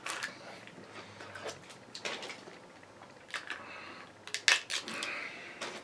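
Peel-off lid of a small plastic dipping-sauce cup being picked at and pulled open by hand: scattered light crinkles and clicks, a quick cluster of them a little past halfway.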